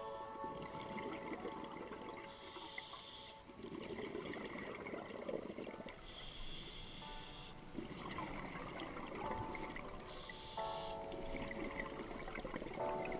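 Scuba diver breathing through a regulator underwater: a short hissing inhale followed by a longer burble of exhaust bubbles, repeating about three times. Soft background music plays underneath.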